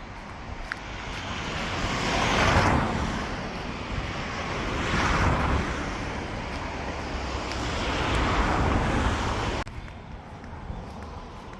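Three road vehicles passing one after another, each swelling up and fading away. The sound drops off suddenly near the end.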